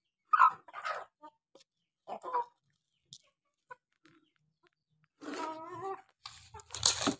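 Chickens clucking in short, separate calls, with a longer, higher call about five seconds in. A rustling noise near the end.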